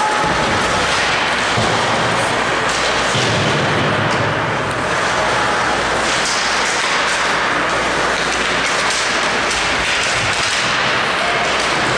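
Steady rink noise of an ice hockey game in play, with scattered sharp knocks from sticks, puck and boards.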